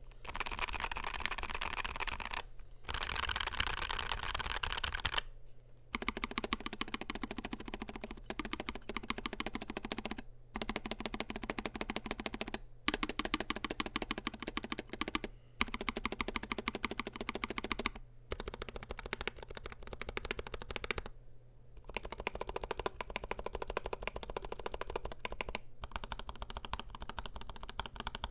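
Typing on a NuPhy Air60 V2 low-profile mechanical keyboard with Gateron Low-profile 2.0 Red linear switches, an aluminium plate and PBT low-profile keycaps. Fast, continuous key clacks come in runs of a few seconds, broken by brief pauses.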